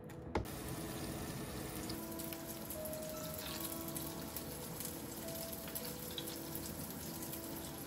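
Pork-and-tofu hamburger patties sizzling in a little oil in a frying pan, a steady crackling hiss that sets in with a sharp click just after the start. Light background music plays along.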